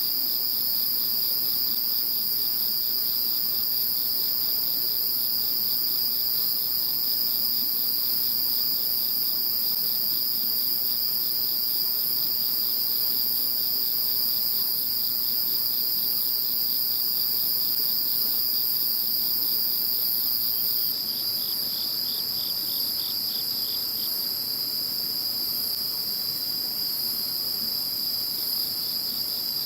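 A chorus of many crickets and other insects calling at once: steady, overlapping high-pitched trills at several pitches. About two-thirds of the way through, the highest continuous trill stops and pulsed chirping takes its place.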